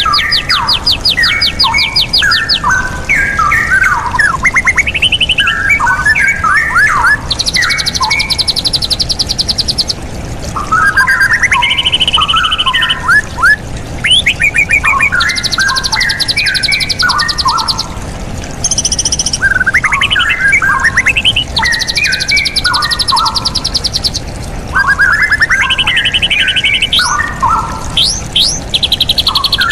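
Straw-headed bulbul (cucak rawa) singing loud, rich bubbling warbled phrases without pause, with blocks of fast, high-pitched even trills breaking in every few seconds.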